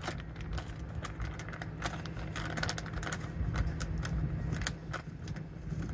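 Irregular light clicks and taps of birdseed and hard plastic bird-feeder parts being handled, over a steady low hum.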